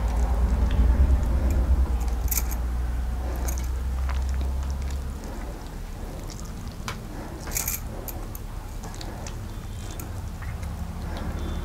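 Wet squishing of ripe mango pulp being squeezed by hand in a steel bowl, with a few light clinks, two of them sharper. A low hum drops away about five seconds in.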